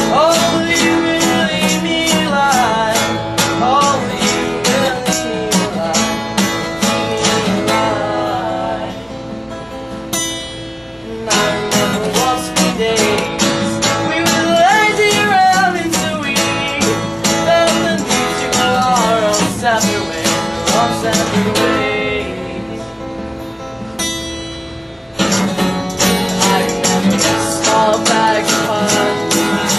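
A band playing live: strummed guitar with a voice singing over it, the strumming keeping a steady rhythm. The playing thins out to a quieter passage twice, about nine seconds in and again about twenty-two seconds in, before picking up again.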